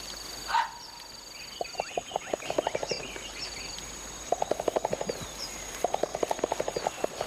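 Gorilla chest-beating display: four bouts of rapid hollow beats, about ten a second, each bout lasting around a second. A brief louder falling call comes about half a second in, over a steady high insect drone and bird calls.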